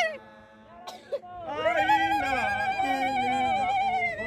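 Several voices singing together, holding long wavering notes. The singing drops low in the first second, then swells back about a second and a half in and carries on.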